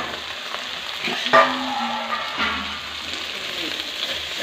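Stuffed okra frying in oil in a metal kadhai, sizzling steadily, while a metal spatula scrapes and knocks against the pan a few times as it turns the okra.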